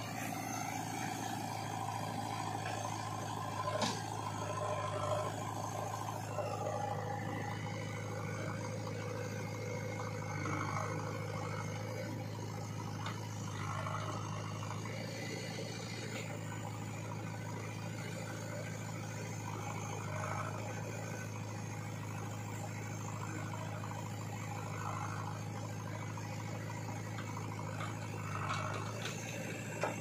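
Diesel engine idling steadily, an even low hum with no revving.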